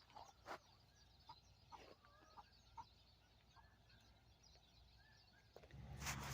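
Laying hens giving faint, scattered soft clucks and short chirps. A low rumble of noise comes in near the end.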